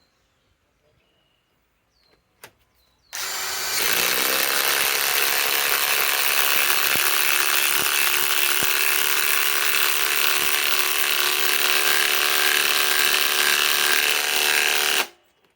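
Ryobi PSBIW25 compact cordless impact wrench spinning up and hammering continuously for about twelve seconds as it drives a long lag screw into wood that has not been pre-drilled, then stopping abruptly. A few faint clicks come before it starts.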